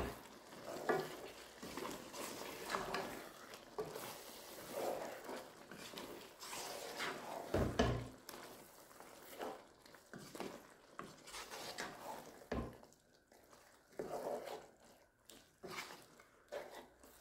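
Wooden spoon stirring a thick curry of lamb trotters and sugar beans in a non-stick pan: quiet, irregular scraping and stirring, with two dull knocks about eight and twelve and a half seconds in.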